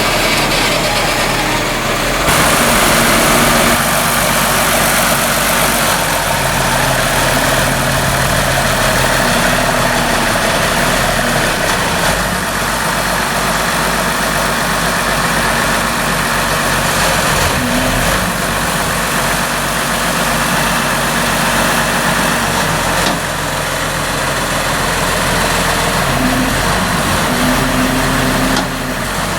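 Sawmill engine running steadily under load while the blade cuts through a large cypress log, a dense, loud cutting noise over the engine.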